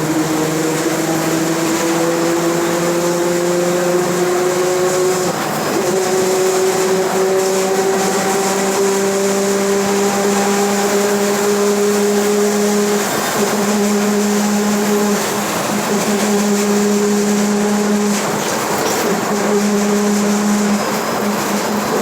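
Mercedes-Benz OF-1721 BlueTec 5 bus's differential growling as the bus gathers speed: a pitched whine that rises slowly for about ten seconds, then holds steady, breaking off briefly a few times. This is the differential noise ("diferencial roncando") the bus is known for.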